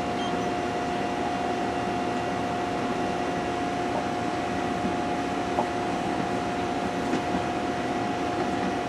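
Machine tool running steadily, a constant whine over an even hum, with a faint tick about five and a half seconds in.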